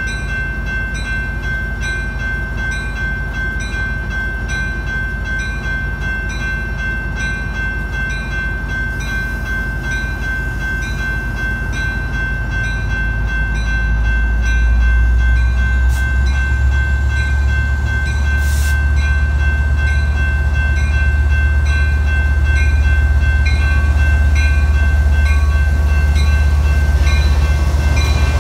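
A train running by, its deep rumble growing louder about halfway through and staying strong. A steady high tone with a regular repeating pattern above it sounds throughout.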